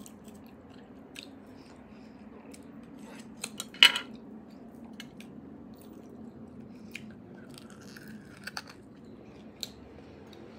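Close-miked eating of roasted beef bone marrow: scattered mouth clicks and small eating noises, with one louder burst about four seconds in, over a faint steady low hum.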